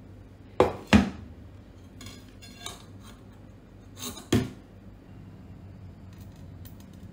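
Stainless steel bowls clanking as they are handled and set down on a wooden table. There are two sharp clanks about half a second in, a brief scraping rustle a couple of seconds later, and two more clanks a little after four seconds.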